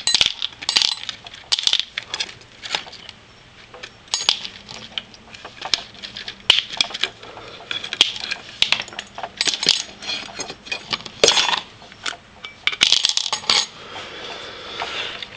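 Small steel ball bearings from a disassembled drawer slide dropping and clinking into a plastic tub: many sharp, irregular clicks and rattles.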